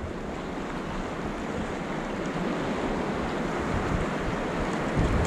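Sea waves washing on a rocky shore, a steady rushing noise, with wind buffeting the microphone.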